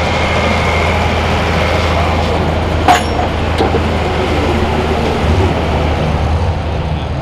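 Turbocharged diesel engine of a limited pro stock pulling tractor idling steadily after a pull, with a single sharp crack about three seconds in.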